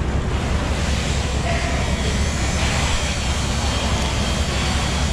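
Steady low rumble of background noise, with no clear knife strokes standing out.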